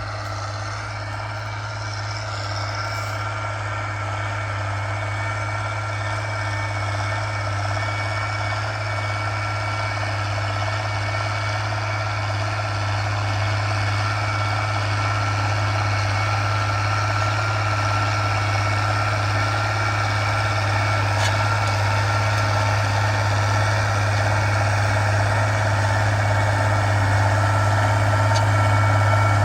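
Tractor engine running steadily with a strong low hum and a thin, steady higher whine, slowly growing louder.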